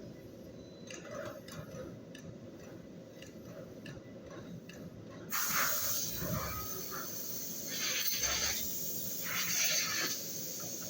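Machine-shop noise: a low steady rumble with a few faint clicks, then about five seconds in it turns suddenly louder, with repeated hissing bursts of a second or so each.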